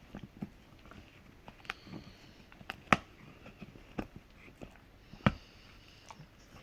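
A Rottweiler gnawing a hard hoof chew: irregular sharp cracks and clicks of teeth on the hoof, two of them loudest, about three and five seconds in.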